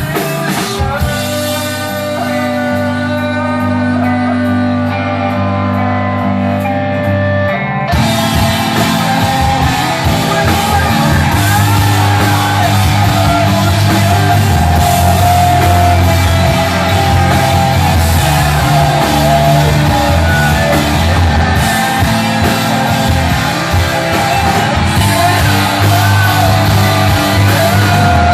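Emo rock band playing live: sustained electric guitar chords over bass, then about eight seconds in the full band comes in louder with drums and crashing cymbals.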